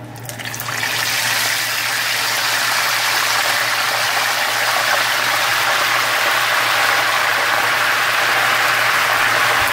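Chicken skin dropped into hot frying oil: the sizzle builds over the first second, then holds as a loud, steady sizzle while the skin deep-fries.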